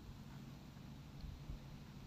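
Faint room tone: a low steady hum and light hiss, with no distinct sounds.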